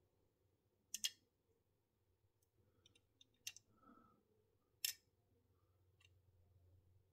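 Handling noises from a 1:64 diecast Hummer H1 model being turned in the fingers: a few short, sharp clicks and taps, the loudest about one second in and near five seconds in, with near silence between them.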